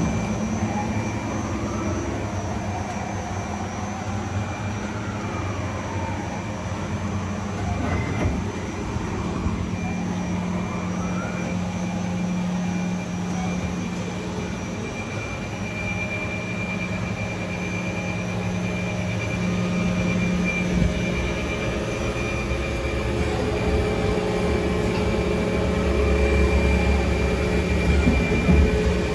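Doosan Puma TT1500SY CNC turning centre running under power: a steady machine hum with a constant high whine, and several whines rising and falling in pitch as it works.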